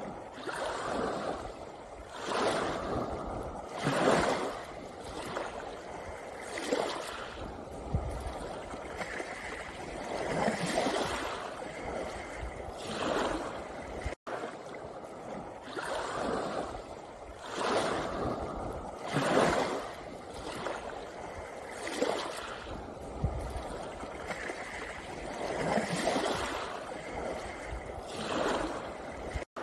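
Small sea waves washing onto a pebble beach, a swell of surf every two or three seconds. The sound cuts out for an instant about halfway through.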